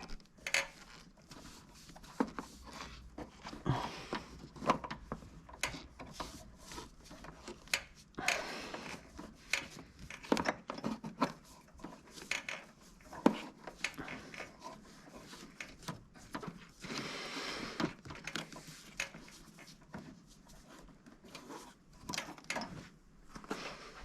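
Irregular small clicks, taps and rustling from gauge wiring and harness leads being handled, untwisted and routed by hand, with a few longer rustles about eight seconds in and again near seventeen seconds.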